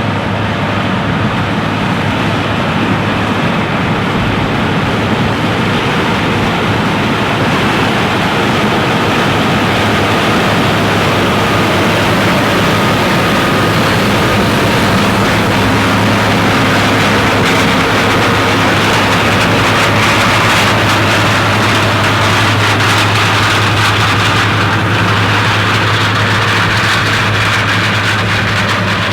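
John Deere 9750 STS combine's 325-horsepower engine and threshing machinery running steadily under load while harvesting corn: a loud, even drone with a constant low hum, swelling slightly midway.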